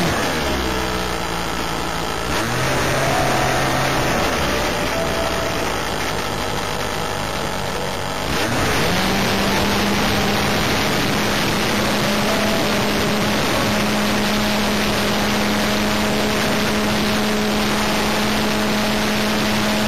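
O.S. Max .25 LA two-stroke glow (nitro) engine on an RC plane, heard close up from an onboard camera. For the first eight seconds it runs at lower, changing speeds. About eight and a half seconds in it opens up quickly to a steady high-speed run for the takeoff and flight.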